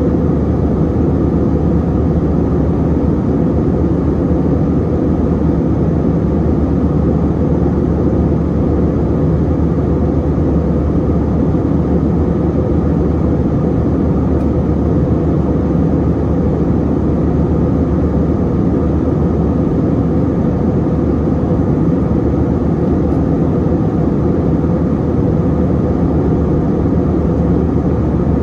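Cabin noise inside an Airbus A321-200 with CFM56 engines: a steady, low drone of engines and airflow that holds an even level throughout, with a faint steady hum underneath.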